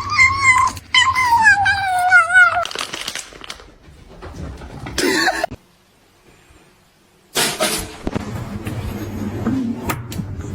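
Domestic cat giving one long drawn-out meow that falls steadily in pitch and wavers near its end, followed by a shorter cry about five seconds in.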